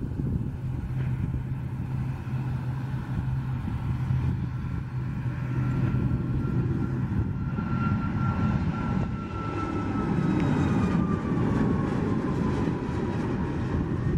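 Boeing 737 MAX 8's CFM LEAP-1B turbofans at takeoff thrust as the jet rolls down a wet runway, lifts off and climbs away: a steady rumble with a high fan whine that falls in pitch over the last few seconds.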